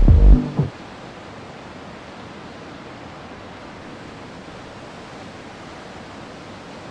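Music with a beat cuts off abruptly under a second in, leaving a steady, even hiss of noise with no rhythm or pitch.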